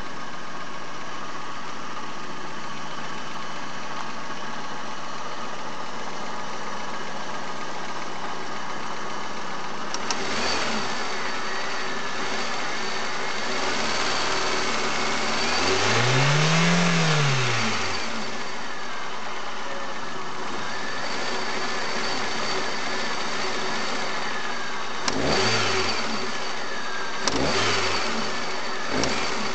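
Chery Amulet engine idling, then blipped: a short rev, one longer rev that rises and falls back, and three quick sharp blips near the end. The owner says the engine knocks when the revs are raised sharply and vibrates too much at idle, and the oil-pressure lamp sometimes lights once it is warm.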